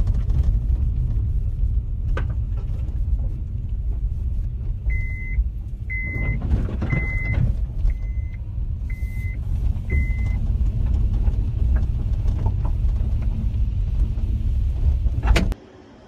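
Loud, irregular low rumble that cuts off suddenly near the end, with a run of six short high electronic beeps about a second apart midway through.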